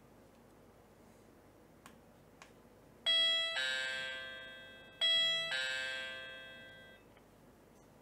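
Electronic doorbell chime of a Hombli Smart Doorbell 2 sounding ding-dong twice, each a higher note then a lower one, as its button is pressed. The second chime comes about two seconds after the first and fades out.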